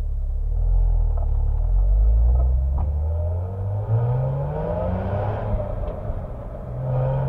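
2003 Porsche Boxster S's 3.2-litre flat-six exhaust, heard from a microphone beside the tailpipe, pulling hard with the revs climbing steadily. About four seconds in there is a brief break for a gearshift, then the revs climb again in the next gear.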